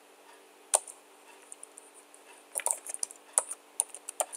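Computer keyboard being typed on: a single keystroke about three-quarters of a second in, then a quick run of key clicks through the second half.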